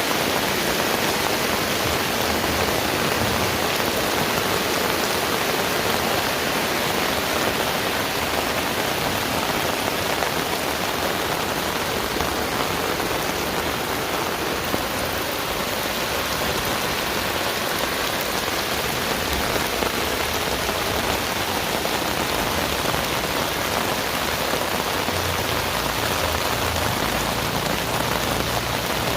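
Heavy rain falling steadily, a dense, even hiss of drops hitting surfaces.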